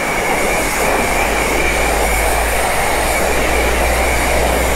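Self-service car wash pressure-washer wand spraying a high-pressure jet of water onto muddy riding boots: a steady hiss of spray with a steady high whine and a low hum underneath.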